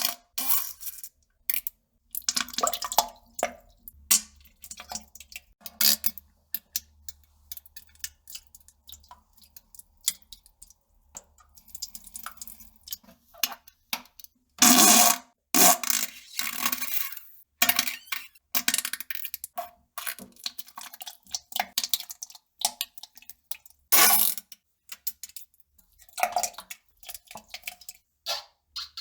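A person defecating: a string of irregular farts and wet, splattering bursts, some with a low buzzing pitch, coming in uneven spurts with quiet gaps between. The loudest come about halfway through and again near the two-thirds point.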